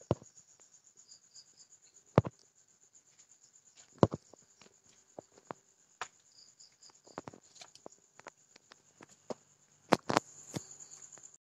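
Crickets chirping steadily in a rapid, even, high-pitched pulse, with scattered sharp clicks or taps, the loudest about two, four and ten seconds in.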